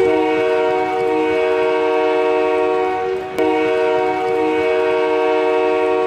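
Hockey goal horn sounding a chord of several steady pitches together, in two long blasts with a brief break a little past the halfway point.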